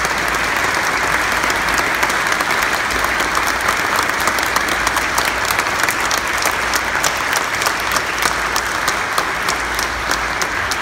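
A large church congregation applauding: many people clapping together in a sustained, steady round of applause.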